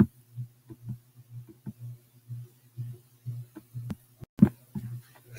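Low hum pulsing irregularly about three to four times a second, with a sharp click at the start and a few more about four and a half seconds in.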